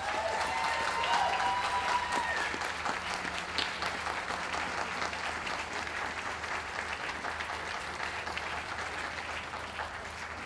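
Audience applauding in a show ring. The clapping swells quickly, is loudest in the first couple of seconds with a cheer over it, then slowly thins out.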